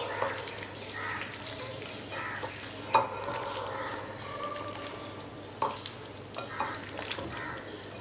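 Hands squelching and kneading raw rooster pieces in a thick spice marinade in a glass bowl, a wet, crackly mixing noise. A couple of sharp knocks stand out partway through.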